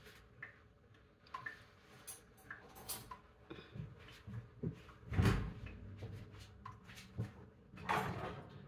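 Household handling noises: scattered light clicks and knocks, with a louder thump about five seconds in and another clatter near the end.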